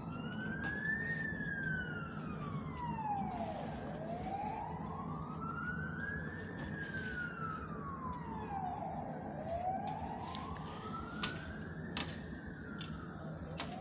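A siren wailing, slowly rising and falling in pitch, one cycle about every five and a half seconds, over a steady low hum.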